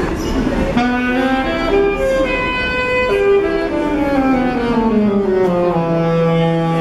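Music: a slow instrumental melody of sustained notes, beginning about a second in and stepping down to a long held low note near the end.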